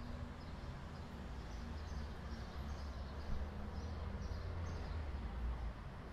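Small birds chirping repeatedly, short high chirps a few times a second, over a steady low rumble.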